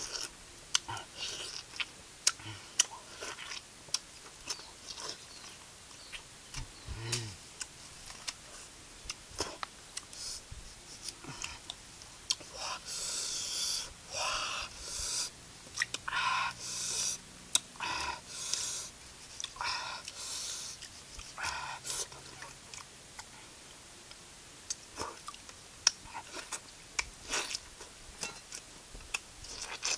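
A person biting into and eating green citrus fruit: sharp crunching bites and chewing throughout, with a run of longer noisy mouth sounds of about a second each through the middle.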